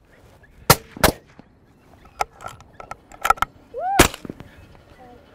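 Rifle shots: two sharp cracks about a third of a second apart about a second in, several fainter shots in the middle, and another loud shot near the end. A short rising-and-falling "woo" shout overlaps that last shot.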